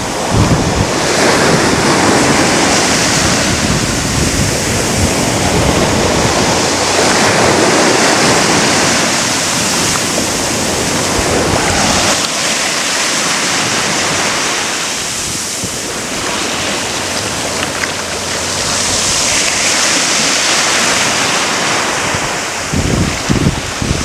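Small sea waves breaking and washing up a beach, the rush of surf swelling and easing every several seconds. Wind buffets the microphone with a low rumble through much of it.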